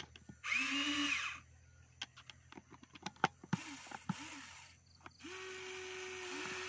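Small electric motors of a toy remote-control excavator whirring in three short runs as the arm and bucket move: one about half a second in, a brief one near the middle, and a longer, steadier one near the end. Light clicks come between the runs.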